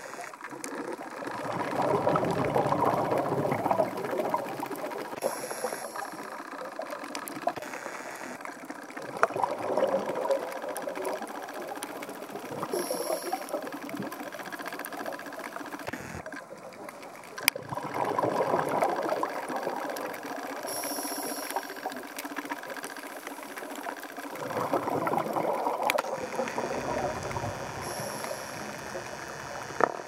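Underwater recording of a scuba diver breathing: a rushing swell of exhaled regulator bubbles about every seven to eight seconds, four times, over a steady fine crackling.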